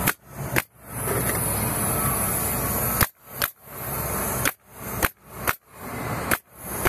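Pneumatic nail gun firing nails into siding boards as a board is fastened to the wall: a string of sharp shots at irregular spacing, some in quick pairs.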